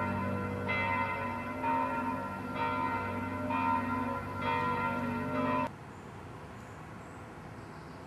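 Church bells ringing, several pitches sounding together, struck about once a second. They cut off abruptly about two-thirds of the way in, leaving a faint steady background hiss.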